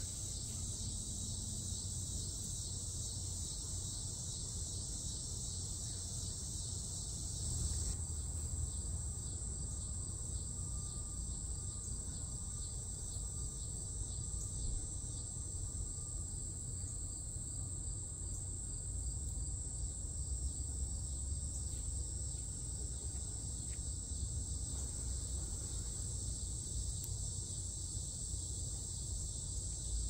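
Steady high-pitched chorus of insects chirring in summer trees, unbroken throughout, over a low steady rumble.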